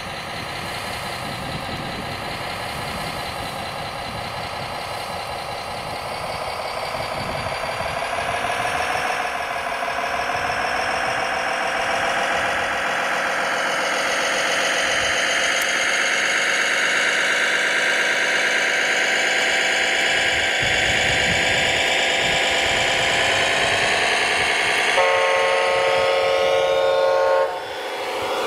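Radio-controlled Kirovets K-700 model truck running with a steady engine drone that rises in pitch from about halfway through. Near the end a horn blows for a couple of seconds and cuts off suddenly.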